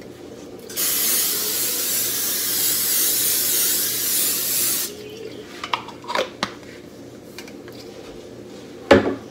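Aerosol can of Pam cooking spray hissing in one steady spray of about four seconds, greasing a foil-lined baking sheet so the meatloaf won't stick. A few light clicks follow, and a sharp knock near the end.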